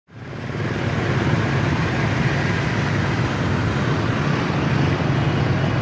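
Steady road traffic noise, the running of many vehicles on a street, fading in quickly at the start and then holding level.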